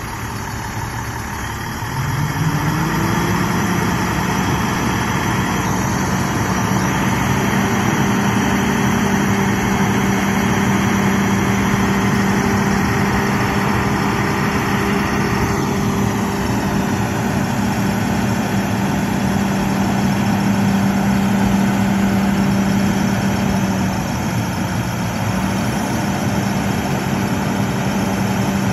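Diesel engine of a 2011 International medium-duty truck running to drive the hydraulic hoist as its chipper dump bed raises. About two seconds in, the engine speeds up to a higher steady pitch and holds there, easing slightly near the end.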